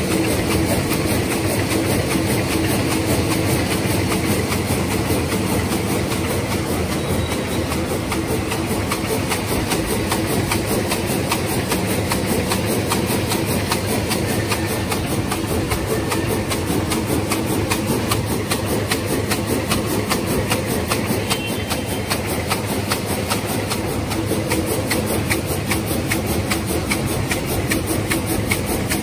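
Twin-head hamburger box forming machine running steadily at production speed: a fast, even mechanical clatter over a constant drone.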